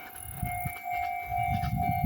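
Japanese level-crossing warning bell ringing in a steady repeating pulse while a train passes, its wheels giving low rumbling thumps.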